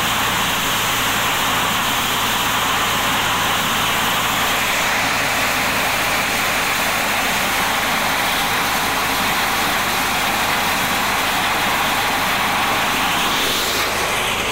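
Motorized corn sheller running steadily under load as cobs are fed in: a dense, even clatter of cobs and kernels through the shelling drum over the steady hum of its drive.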